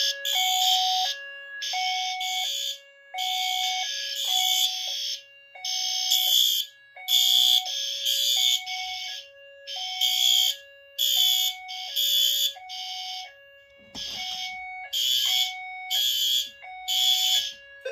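Fire alarm horn strobes blasting in repeated pulses over a low two-tone alarm tone that alternates between two pitches about every half second. A dull thump comes about fourteen seconds in, and all the signals cut off suddenly at the very end as the alarm is silenced.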